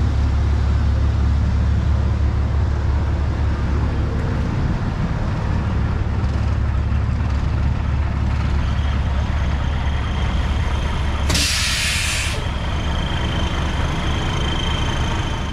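Fire truck engine idling with a steady low rumble. About eleven seconds in, a loud hiss of air lasting about a second: the truck's air brakes venting.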